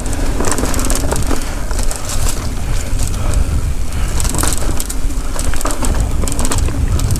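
Mountain bike rolling fast along dirt singletrack, its tyres crunching over dry fallen leaves with frequent irregular crackles and rattles, under a steady low rumble of wind on the microphone.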